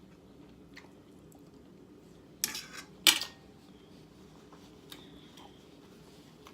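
Cutlery clattering against a dish twice in quick succession near the middle, with a few faint clicks around it.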